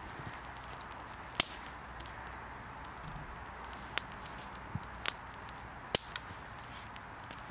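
Small campfire of damp pine twigs burning, with a handful of sharp cracks and pops scattered a second or so apart over a low steady hiss.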